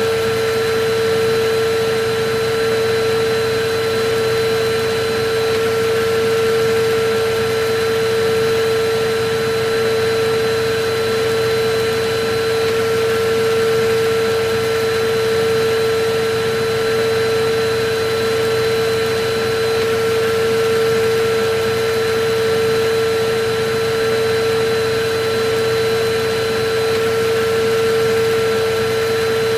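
Electric vacuum cleaner running steadily, a constant motor whine over a rushing hiss, used as white noise for soothing a baby to sleep.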